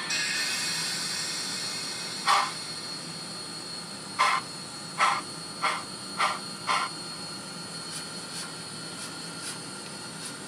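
TCS WOW steam sound decoder in a model Pennsylvania Railroad N1s 2-10-2 playing a steady hiss of steam. One sharp exhaust chuff comes about two seconds in, then a run of five chuffs in quick succession midway, then only faint, regular chuffs as the model moves slowly.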